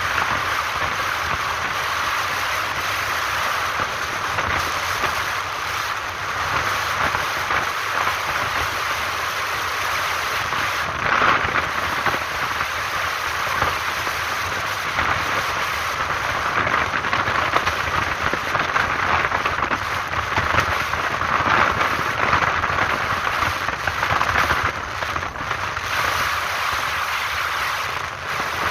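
Steady rush of wind and road noise on the microphone of a motorcycle riding at speed, swelling louder in gusts about a third of the way in and again later.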